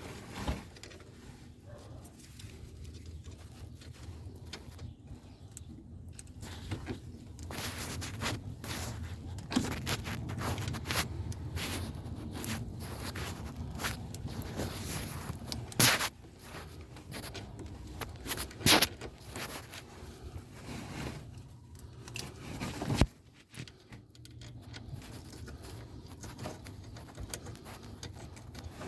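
Hand tools and parts being handled: scattered scrapes, clicks and metallic rattles over a low rumble, with a couple of sharper knocks a little past halfway. The rumble drops away about three quarters of the way through.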